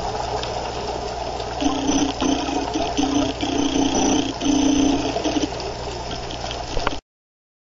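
Underwater sound of a scuba dive: rushing, gurgling bubbles over a steady low hum, with short humming tones coming and going. It cuts off suddenly near the end.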